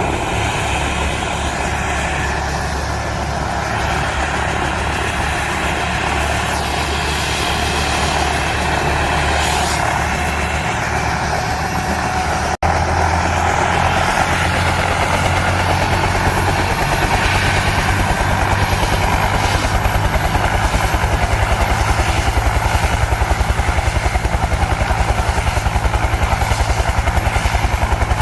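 Firefighting helicopter running with a steady low drone. After a brief break about halfway through, a rapid, regular rotor beat comes up and grows stronger toward the end.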